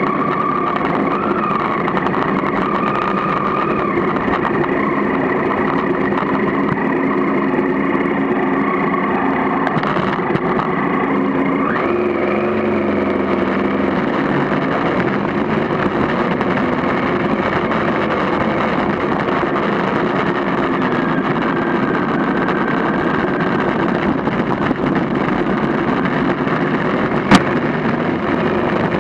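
Motorcycle engine running steadily as it rides along, its pitch shifting a little, with one sharp click near the end.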